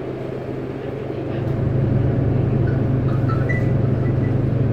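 Diesel bus engines running, a steady low drone that grows louder about a second and a half in, with a few faint high chirps near the middle.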